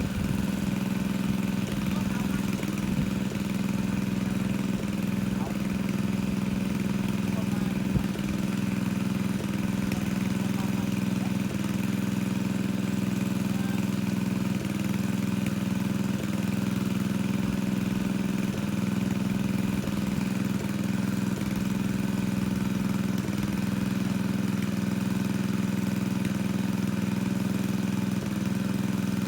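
Engine of a water pump running steadily at a constant speed, pumping out a fish pond.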